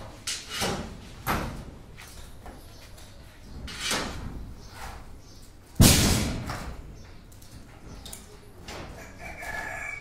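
Timber slab shuttering being struck and knocked loose from a concrete ceiling with a long pole: a series of sharp wooden knocks and clatters, the loudest about six seconds in with a ringing decay.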